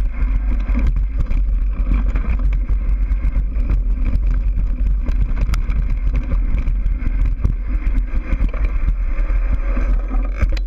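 Mountain bike descending a dirt singletrack at speed: wind buffets the action-camera microphone in a steady low rumble, over a continuous clatter of tyres on dirt and rocks and the bike rattling over bumps.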